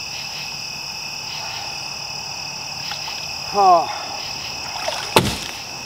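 Steady night chorus of frogs and insects, a continuous high-pitched drone. A short groaning voice comes about three and a half seconds in, and a single sharp knock near the end.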